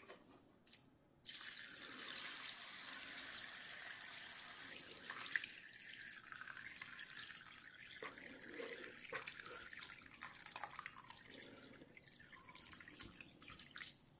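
Water poured from a plastic bowl into a shallow aluminum tray of dry glass noodles. After a couple of light knocks, a steady splashing stream starts about a second in, then thins to a trickle and drips near the end.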